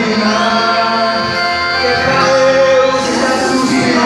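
Loud, steady music with singing, played for a festa junina quadrilha dance.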